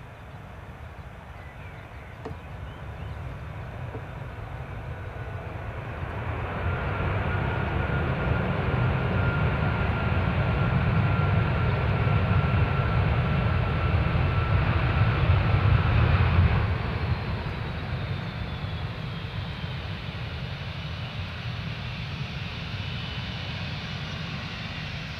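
Boeing 757 jet engines during rollout and taxi just after landing. A low rumble with a steady whine builds over several seconds to a loud peak, then drops off sharply about 16 seconds in. It settles into a quieter run, with a high whine slowly falling in pitch near the end.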